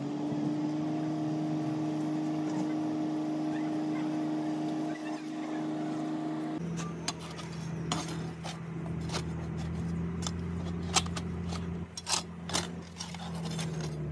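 A steady motor hum throughout, changing pitch abruptly about halfway. Over the second half come many sharp clicks and scrapes as a steel rod and flat bar are worked over the packed moulding sand of a casting flask.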